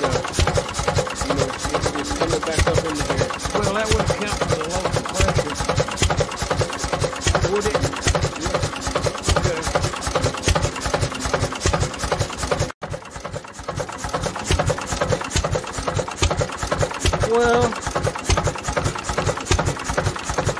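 International Harvester Type M 3 HP hit-and-miss engine running with a steady, rapid, regular mechanical clatter. Its crankcase breather is stuck. The sound breaks off for an instant just past the middle.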